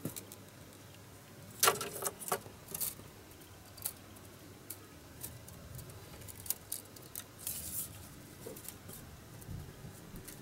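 Thin bamboo skin strips clicking, ticking and rustling against one another and a wooden tabletop as they are woven by hand, with a louder cluster of clicks about two seconds in.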